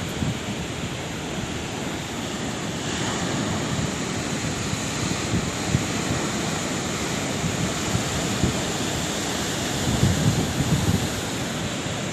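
Sea waves breaking and washing on the shore: a continuous surf wash, with a wave breaking about three seconds in and a heavier low rumble around ten seconds in.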